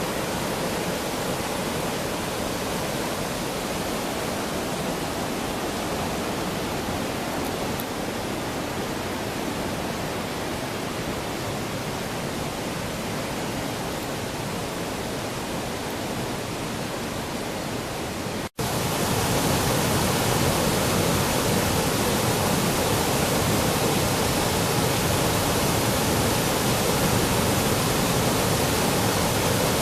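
Waterfall running in heavy flow, swollen by recent heavy rain: a steady rushing roar. It breaks off for an instant about two-thirds of the way through and comes back louder.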